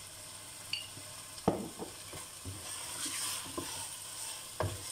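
A spoon stirring and scraping minced meat in a stainless steel pot, with a soft sizzle from the mince cooking. There are several short knocks of the spoon against the pot, the sharpest about a second and a half in and another near the end.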